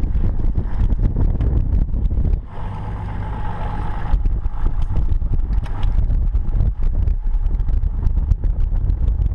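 Wind buffeting an action camera's microphone on an open boat: a dense rumble with constant crackling gusts. About two and a half seconds in it gives way for a second and a half to a quieter, steadier hum.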